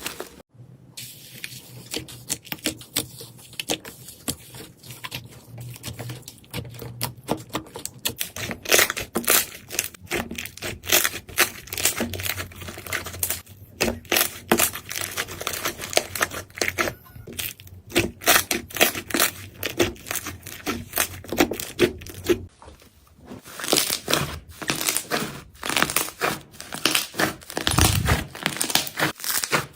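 Slime being squeezed and pressed by hand, giving a dense run of crackling clicks and pops that stops briefly twice as one clip gives way to the next.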